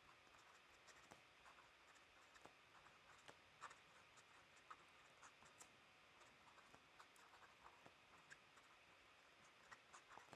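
Faint scratching of a fountain pen nib writing on paper, with small irregular ticks as the strokes start and lift.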